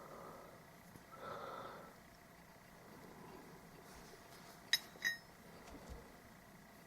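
Two light metallic clinks about half a second apart, each ringing briefly: a steel tool touching the metal of a differential being taken apart. A soft breath comes earlier.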